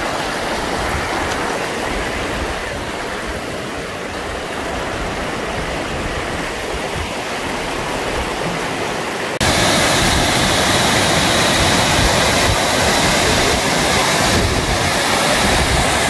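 Steady rush of shallow river water running over rocky rapids. About nine seconds in it cuts abruptly to a louder, fuller rush of water from a large waterfall.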